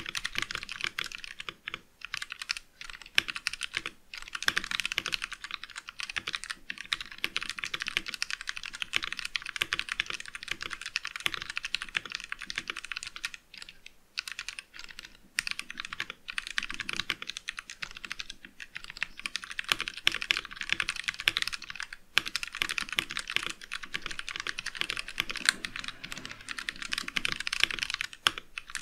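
Typing on a Vortexseries VX5 mechanical keyboard with stock Outemu Brown tactile switches in an acrylic sandwich case: rapid, continuous key clacks in long runs with a few brief pauses.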